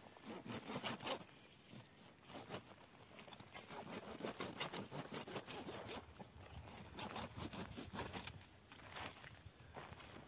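A dry, twiggy desert shrub being pulled up by hand: brittle stems and roots scraping, crackling and tearing loose from stony ground in uneven spells.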